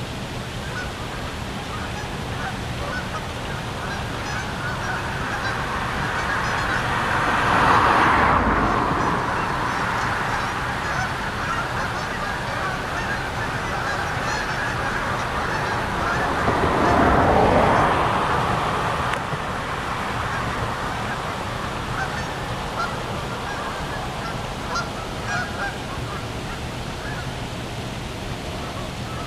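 A large flock of Canada geese on open water, honking on and off. Under the calls runs a steady rushing noise that swells loudly twice, about eight seconds in and again around seventeen seconds.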